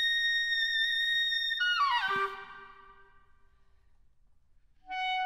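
Solo clarinet holding a very high, steady note, then sweeping down in a fast falling run about two seconds in. A near-silent pause follows, and a new, lower sustained note begins near the end.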